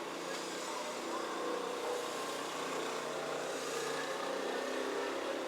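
Road traffic outside the window: a vehicle engine running at a steady pitch over a constant traffic hiss, with a brief high chirp near the start.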